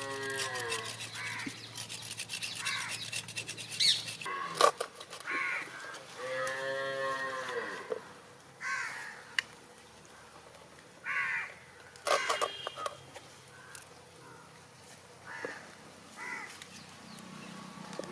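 Cattle mooing: two long calls that rise and fall in pitch, one right at the start and another about six seconds in, with scattered short knocks and clicks between them.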